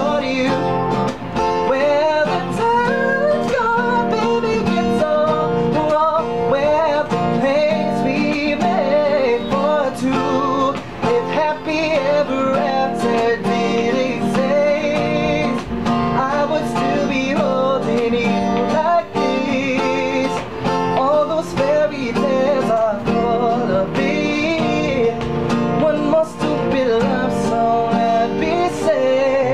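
A man singing a love song with guitar accompaniment, his voice wavering with vibrato over steady strummed and plucked chords.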